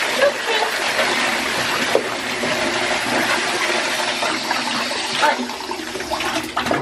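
Bathwater rushing and splashing in a bathtub as a small dog is washed by hand, with water poured over it from a plastic scoop.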